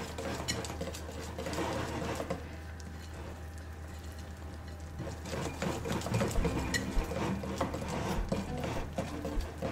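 Wire balloon whisk beating cake batter in a glass bowl by hand: a quick run of clicks and scrapes as the wires hit the glass, a little louder from about halfway through.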